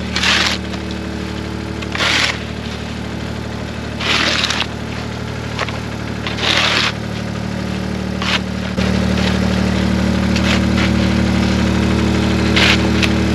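An engine running steadily at a constant speed, with a short rasping burst about every two seconds; about nine seconds in the engine note gets louder and stays so.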